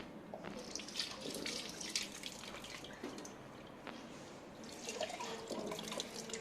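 Water dripping and splashing in two spells, with a quieter lull in the middle.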